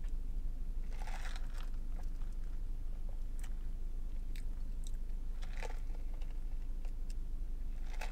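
Close mouth sounds of someone sipping and tasting an iced coffee: a handful of short wet clicks and smacks scattered through, over a steady low hum.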